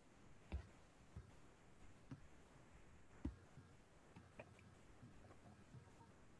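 Near silence, with about half a dozen faint, sharp clicks spread through it; the loudest comes about three seconds in.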